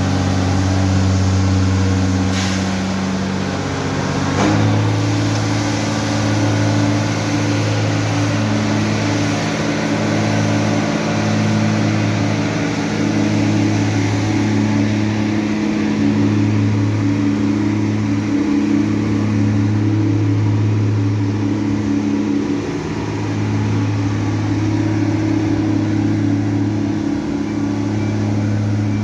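Truck engine running steadily under a hiss that fits its front-mounted broom sweeping stones and grit off the road. The engine note steps up slightly about four and a half seconds in.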